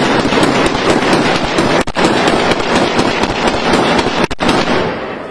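Heavy gunfire from many assault rifles at once: a dense, unbroken crackle of overlapping automatic bursts with two split-second gaps, easing off near the end.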